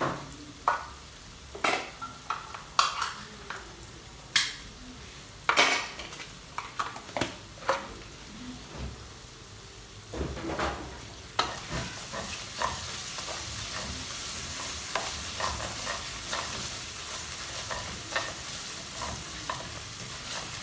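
A spoon stirring and scraping in a pan of spices frying in oil, with sharp knocks against the pan through the first half. About halfway in, a steady sizzle rises and carries on under lighter stirring clicks.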